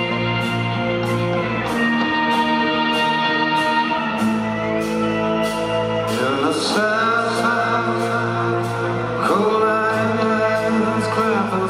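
Live rock band playing: electric guitars and drums keeping a steady beat. A man's lead vocal comes in about halfway through.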